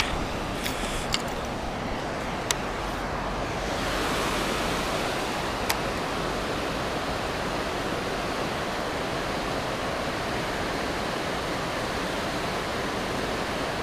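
Steady rushing of flowing river water, with a few light clicks in the first few seconds and one more about six seconds in.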